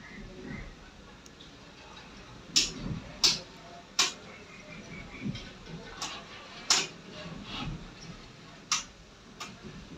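About seven sharp plastic clicks at uneven spacing as the switches and casing of a just-reassembled desktop laminator are worked to switch it on for a test.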